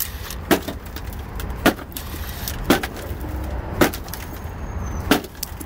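Hard blows of a hand tool bashing at the rusted front body of a Hyundai Elantra. There are five sharp cracking strikes, roughly a second apart.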